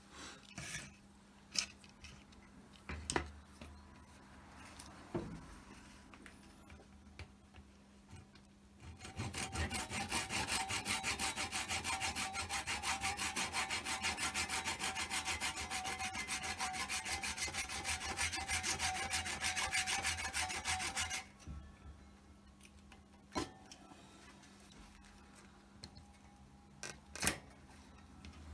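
Hand saw cutting through the handle of an old paintbrush in quick, even back-and-forth strokes, running for about twelve seconds and stopping abruptly. A few light knocks and handling clicks come before and after.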